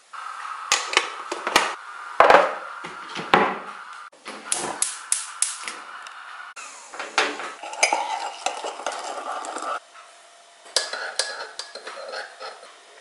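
Coffee being made: a run of clinks and knocks from a metal spoon, a coffee tin and a ceramic mug, ending with a teaspoon stirring and clinking inside the mug.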